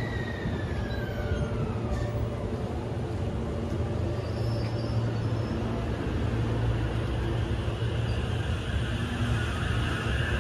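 JR E353 series limited-express electric train pulling away from the platform. A steady low hum from its motors and equipment runs throughout. An electric whine glides down in pitch over the first two seconds, and a higher whine builds near the end as the train picks up speed.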